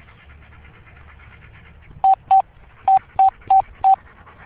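Six short electronic beeps, all at the same pitch, starting about two seconds in: a quick pair, then four evenly spaced at about three a second.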